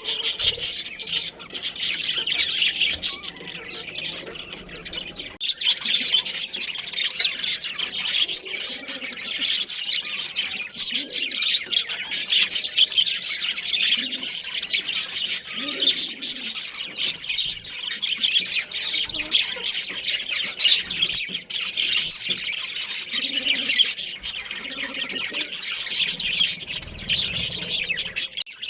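Budgerigars chattering and chirping continuously: many short, high calls overlapping, with an occasional squawk.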